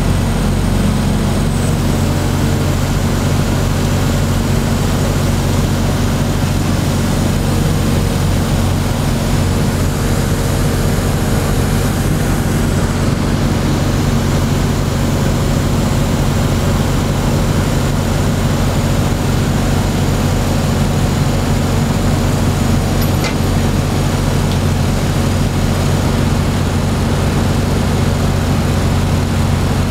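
Mobile crane's diesel engine running steadily at constant speed during a steel lift, a continuous low drone.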